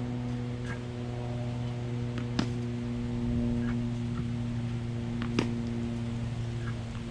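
Steady low mechanical hum with a stack of overtones, broken by a sharp click about every three seconds.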